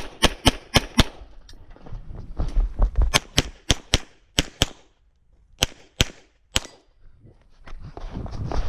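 Pistol shots fired in quick strings, about three to four a second, with short pauses between strings and a brief near-silent gap about five seconds in.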